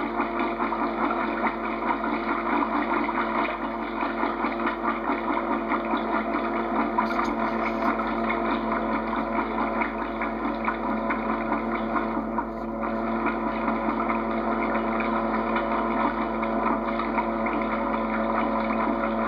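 A small motor running steadily, a constant hum with a fast flutter.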